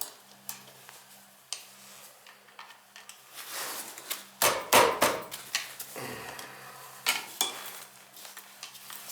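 Metallic clinks and knocks at a Beckett oil burner over a steady low hum, with a cluster of louder knocks about halfway through.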